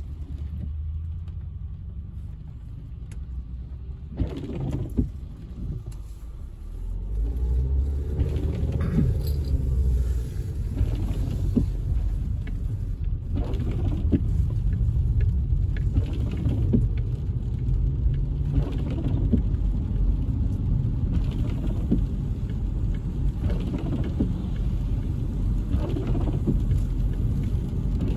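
Inside a car driving on a wet road in the rain: a steady low rumble of road and engine with a hiss of tyres on wet pavement. It gets louder about seven seconds in. Short swishes every few seconds match the windshield wipers.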